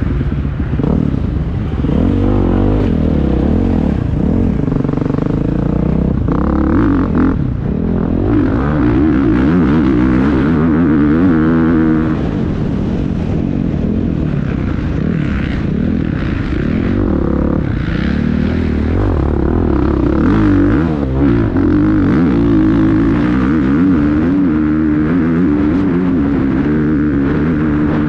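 Dirt bike engine heard close up while it is ridden, its pitch rising and falling again and again as the throttle is opened and closed.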